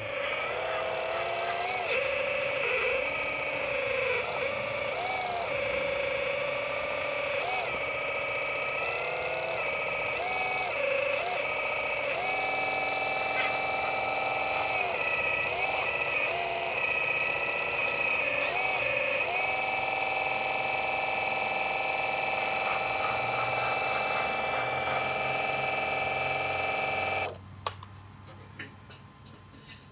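Hydraulic pump of an RC4WD 1/12-scale Earth Digger 4200XL excavator whining steadily while the arm and bucket dig. Its pitch dips and recovers again and again, and it cuts off suddenly near the end.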